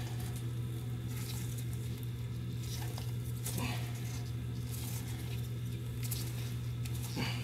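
Faint, scattered scraping and clicking of nuts being tightened on a toilet's closet bolts to fasten the bowl to the floor, over a steady low hum.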